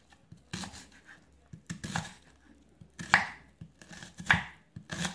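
A kitchen knife slicing through a red onion and striking a wooden cutting board, in about six separate cuts roughly a second apart.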